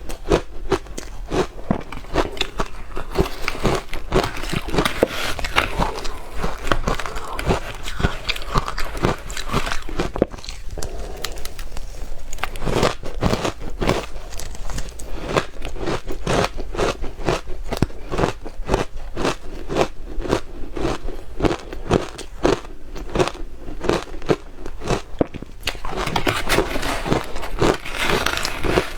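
A person chewing soft, crushed freezer ice close to the microphone: a steady run of crisp crunches, a few each second.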